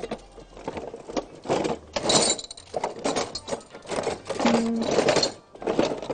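Rummaging through a kitchen drawer for scissors: metal utensils and other items clattering and knocking together irregularly.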